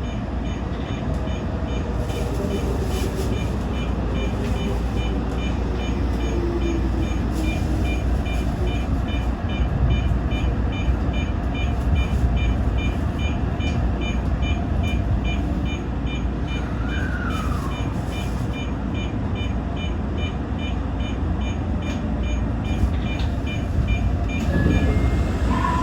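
Toyo Rapid Railway 2000 series electric train running and braking into a station: a steady rumble, with a whine falling in pitch a few seconds in. A rapid, steady high beeping repeats throughout and stops near the end.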